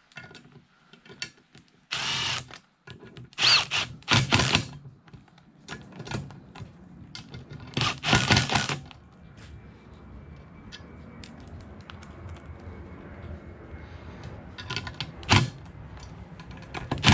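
Cordless driver running screws into the bearing retainers of an aluminium ATV crankcase half, in several short bursts with small clicks of parts and tools between them.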